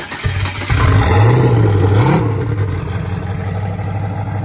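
Turbocharged 427 LSX V8 starting up, revving up and down briefly about a second in, then settling into a steady, lumpy idle like a cammed LS.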